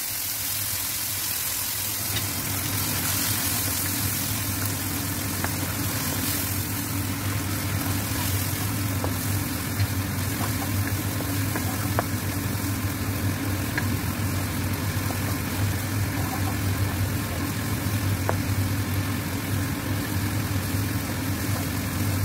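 Blended chili paste frying in a wok with shallots and garlic, a steady sizzle with a few light ticks from a wooden spatula stirring it, over a steady low hum.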